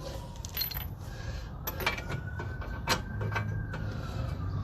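Metal hand tools and sockets clinking: a handful of sharp, separate metallic taps and clicks over a low steady hum.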